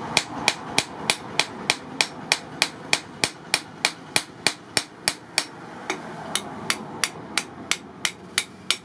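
Hand hammer striking a steel double-bit axe head, forged from car axle steel, on an anvil block: sharp metallic blows in a steady rhythm of about three a second.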